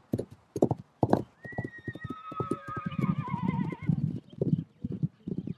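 Przewalski's horses galloping, their hooves thudding in a quick, uneven patter. About a second and a half in, one horse gives a long, wavering whinny that lasts around two and a half seconds.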